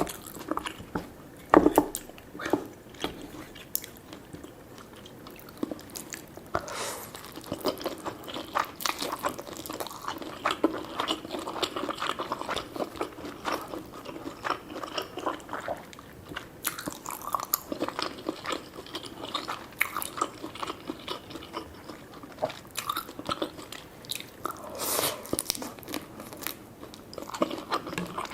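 Close-miked chewing and biting of food in a mukbang, with many short wet mouth clicks. A few sharper bites come about a second and a half in, and busier bursts of chewing come in the middle and near the end.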